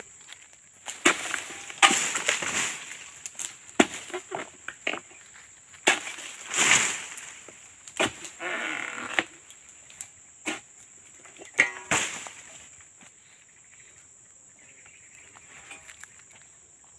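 Oil palm harvesting with a long-poled sickle: a string of sharp knocks and rustling swishes as the blade hacks at the crown and fronds and fruit bunches crash down through the leaves, dying away after about twelve seconds. A steady high insect whine runs underneath.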